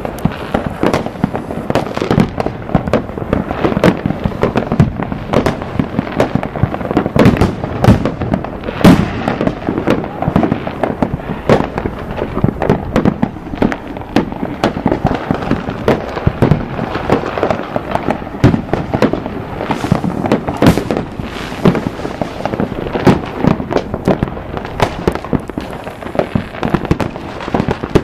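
Fireworks display: a dense, unbroken run of bangs and crackling from many shells bursting at once, with the loudest reports about a third of the way through.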